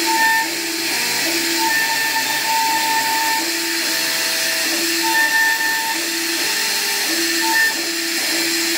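CNC router carving wood: a steady hissing machine whine, with short pitched tones that switch on and off and change pitch every half second or so.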